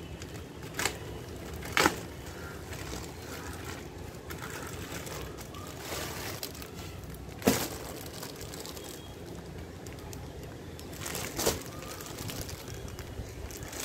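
A white plastic courier mailer being torn open and a clear plastic packet pulled out of it. Crinkling plastic with four sharp crackles, the loudest about seven and a half seconds in.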